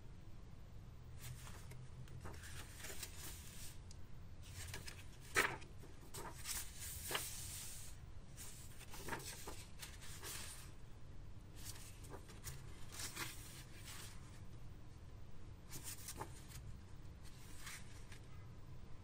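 Paper pages of a hardcover sketchbook being turned and flipped by hand: a run of soft rustles and swishes, with the sharpest page flick about five seconds in. A faint steady low hum lies underneath.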